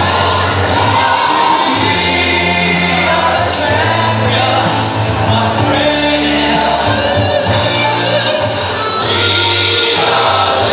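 Music with a group of voices singing over held bass notes.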